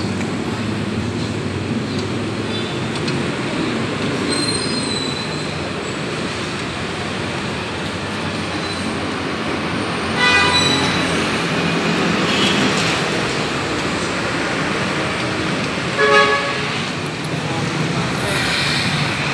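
Steady street traffic noise, with a vehicle horn tooting briefly about ten seconds in and again about six seconds later.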